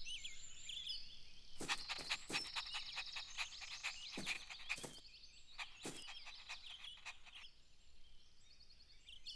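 Soundtrack outdoor nature ambience: birds chirping and high, rapid trills. A run of short taps comes in the first half.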